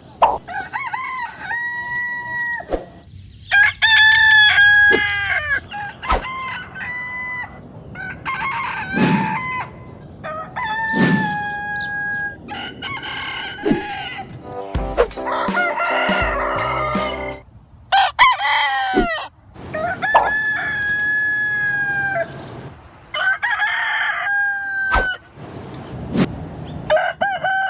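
Roosters crowing, one crow after another, about ten in all, each a long call that falls slightly in pitch at the end. The crows come from different recordings cut together, so the quality changes abruptly from crow to crow.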